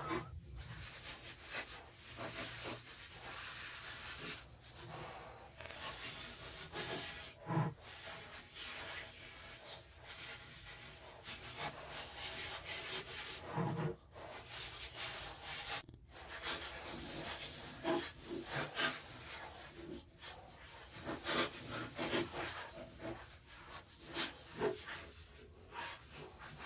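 Bristles of a small paint brush scrubbing and dabbing primer onto the inside of a metal lathe base, in short irregular strokes, with a couple of duller knocks partway through.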